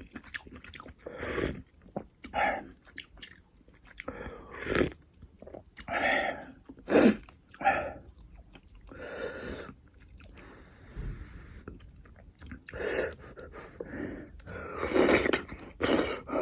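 Close-miked chewing and biting of food, in irregular bursts of varying loudness with short pauses between them.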